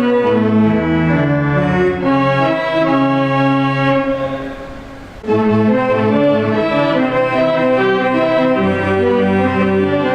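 Music with long held notes in the low and middle range. It fades down about four seconds in, then starts again abruptly about a second later.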